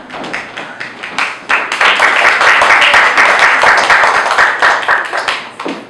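Audience applauding, swelling about a second and a half in and dying away near the end.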